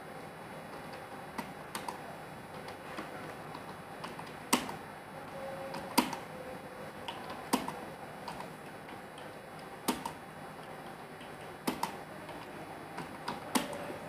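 Slow, irregular key clicks on a computer keyboard, with a louder keystroke every couple of seconds among the lighter taps.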